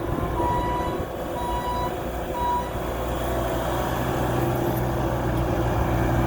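A motor vehicle's engine running steadily, with a short electronic warning beep sounding about once a second that stops about two and a half seconds in.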